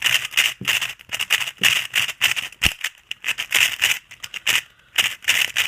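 Plastic twisty puzzle being turned quickly in the hands: a rapid run of sharp clicking and clattering, several clusters a second.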